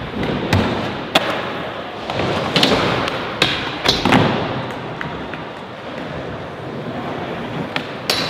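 Skateboard wheels rolling on a hard skatepark floor, broken by several sharp clacks and thuds of boards popping and landing.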